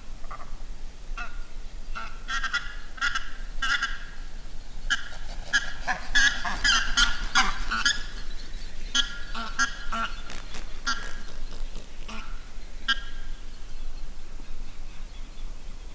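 A flock of six geese honking as they fly over. The calls repeat throughout, come thick and overlapping in the middle, then thin out toward the end.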